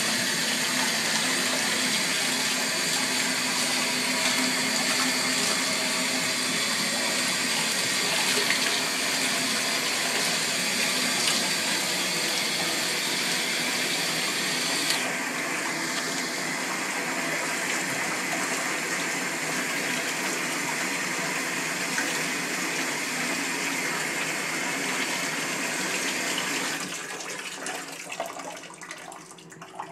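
Water running steadily from a bathtub tap and splashing over a kitten held under it; the flow changes about halfway through and stops a few seconds before the end.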